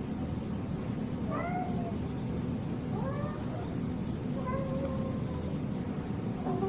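Domestic cat meowing three times, softly, about a second and a half apart, the last meow longer and held level, over a steady low background hum.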